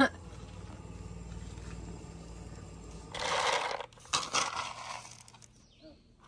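Short bursts of dry scraping over a low steady hum: one about three seconds in, then a few shorter ones a second later.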